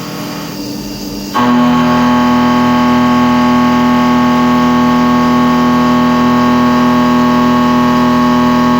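A carbide end mill cutting carbon steel dry on a CNC vertical machining centre gives a loud, steady, pitched whine. It is quieter for about the first second and a half, then jumps up abruptly as the cutter bites back into the steel and holds one pitch.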